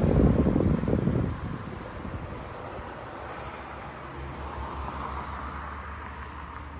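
Concrete mixer truck's engine running: a loud low rumble for about the first second and a half, then dropping to a quieter, steady low hum.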